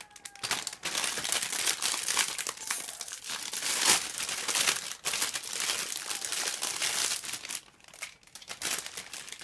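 Clear plastic bag holding plastic model-kit runners crinkling continuously as it is handled, thinning out to a few rustles near the end.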